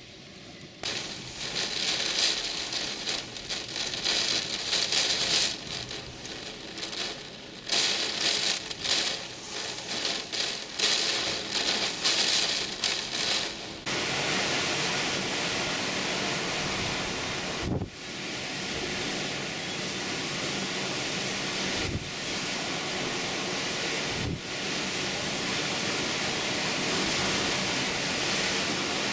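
Hurricane-force wind and rain. It surges in gusts for the first fourteen seconds or so, then holds at a steady, dense level with a few brief dips.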